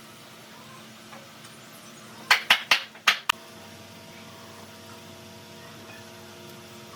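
Five sharp knocks in quick succession a little over two seconds in, followed at once by a faint steady hum.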